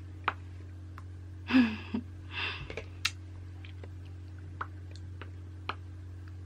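Two short breathy sighs from a person, about one and a half and two and a half seconds in, with a few scattered small clicks over a steady low electrical hum.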